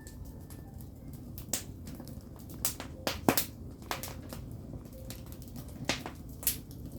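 Firewood burning, crackling with irregular sharp pops and snaps over a low steady rumble; the loudest pop comes about three seconds in.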